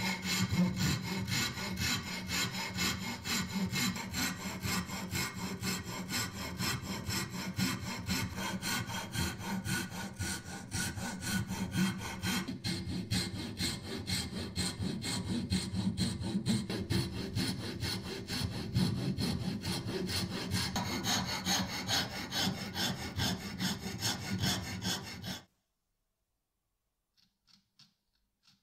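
Coarse file rasping across a beech-wood handle blank in rapid back-and-forth strokes, shaping the wood. The filing cuts off suddenly about three seconds before the end.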